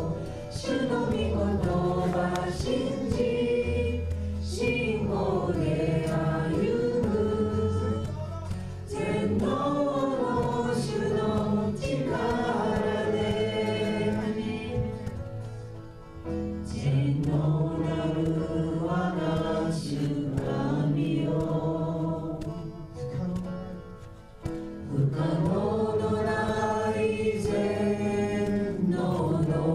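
Worship song sung in Japanese by a group of voices over instrumental backing.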